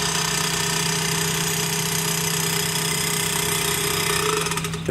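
An engine running steadily, a constant low hum with an even rushing noise over it.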